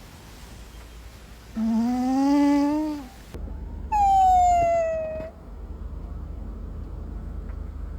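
A sleeping cat giving a drawn-out, pitched snore that rises slightly in pitch, about a second and a half long. Then, after a cut, a higher whining call that slides down in pitch for about a second and a half.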